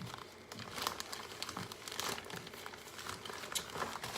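Plastic packaging bag crinkling with irregular crackles as it is handled and worked open by hand.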